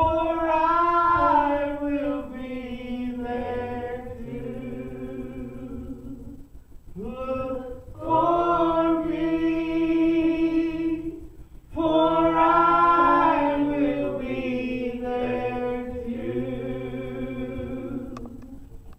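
A gospel song sung by a man and a woman in duet through microphones, in three long held phrases over steady low accompaniment notes, dying away near the end.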